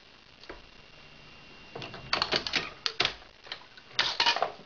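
Hornady 366 Auto shotshell reloading press being worked by hand: two clusters of rapid metallic clicks and clatter, one about two seconds in and a shorter one near the end.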